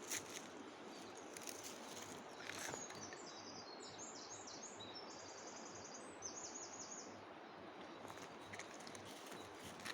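A steady rushing hiss of flowing river water. A small bird calls in quick, repeated high trills from about three to seven and a half seconds in.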